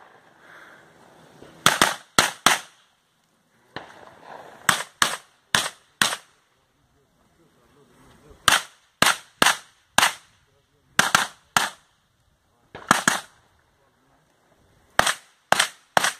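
Pistol-caliber carbine, a 9mm PSA AR9, firing in quick strings of two to four shots about half a second apart, with pauses of a second or two between strings.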